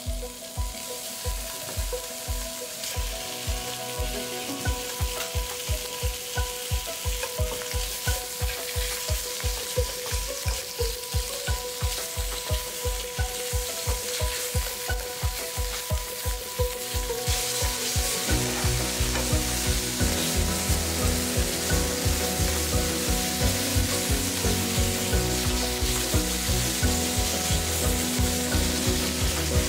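Sliced pork belly sizzling in hot oil in a non-stick frying pan as it is stirred and turned with chopsticks, the sizzle growing louder about halfway through. Background music with a steady beat plays throughout.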